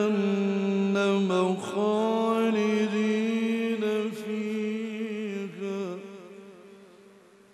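A male Quran reciter's voice chanting one long, drawn-out melodic note with ornamented turns. It fades away over the last second or two.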